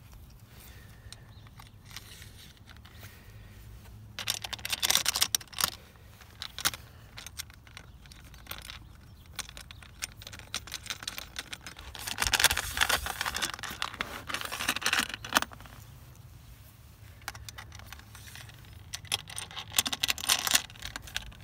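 Metal awning-mounting hardware (bolts, nuts and steel brackets) clinking and scraping against the awning's aluminium rail as it is fitted by hand, in three spells of rattling.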